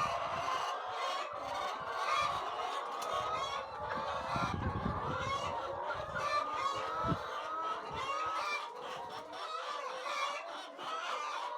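A flock of laying hens clucking and calling continuously, many birds at once, with a low rumble in the middle and a brief thump about seven seconds in.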